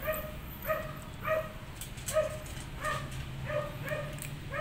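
Permese (Persian-Siamese) kitten mewing repeatedly in short, high calls, about one every half second to second. Faint clicks from kibble being eaten sound alongside.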